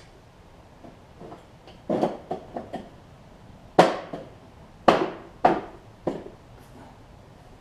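Sharp clacks and knocks of a hard plastic cover being worked against a push mower's deck: a quick run of about four light knocks, then four louder single clacks about a second apart.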